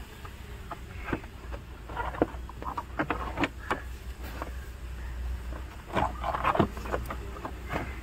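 Hard plastic dashboard panels and air ducts being handled and pressed into place: irregular plastic knocks, clicks and rattles, heaviest about two to three seconds in and again about six seconds in, over a low steady hum.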